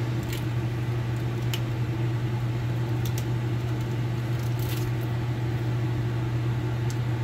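A steady low machine hum runs throughout, with a few faint light ticks scattered over it.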